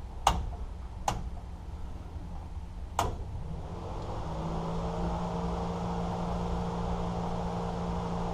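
Three sharp clicks, then from about four seconds in a steady electric hum: the fuel pump running with the ignition switched on, just before the engine is cranked.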